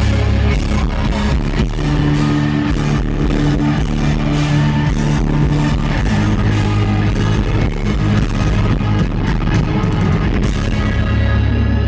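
Live heavy rock band playing loud: electric guitar, bass and drums, with long held low notes under frequent cymbal strikes.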